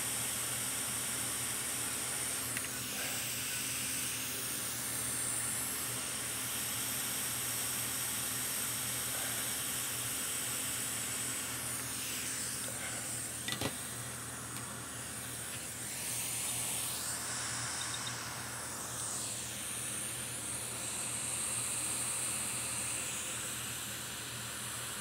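Steady hiss of a hot air rework station's airflow, rising and falling a little, with a brief click about halfway through.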